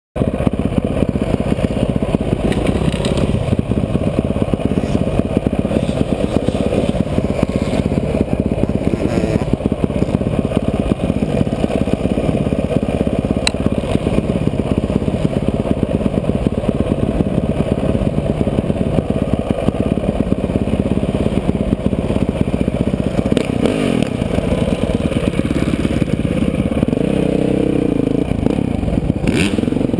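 Dirt bike engine running at low speed under the rider, a dense steady rumble, with the engine note coming through more clearly and changing pitch near the end as the throttle is worked.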